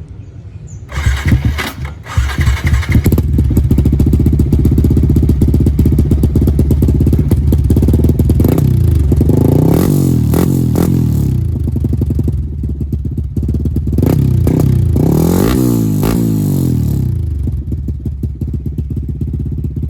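Yamaha Y15ZR's 150 cc single-cylinder four-stroke engine breathing through a Cardinals 32 mm stock-replacement exhaust with its silencer insert removed: it starts about a second in and idles, is revved up and let back down twice, then settles back to idle near the end.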